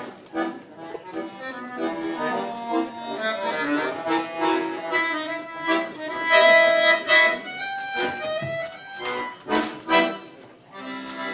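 Accordion playing live, with held chords under a moving melody and a few short sharp accents a little past the middle.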